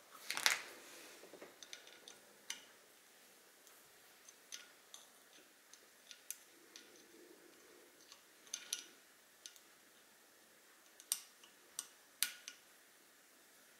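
Small, scattered metal clicks and taps of an Allen key working the screws of a rifle scope's ring caps, with a louder clatter about half a second in.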